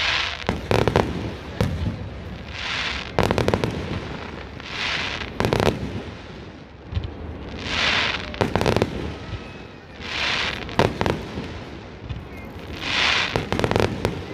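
Aerial fireworks shells bursting in a steady sequence: groups of sharp bangs every two to three seconds, each with a brief hiss.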